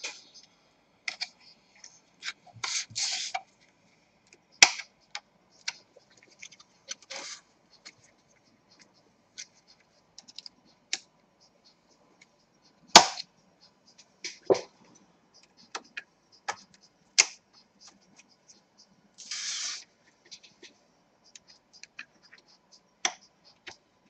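Plastic snap-fit clips of a Lenovo V310 laptop's bottom cover clicking loose as the cover is pried off by hand: sharp, irregular clicks several seconds apart, with two brief scraping rubs of plastic.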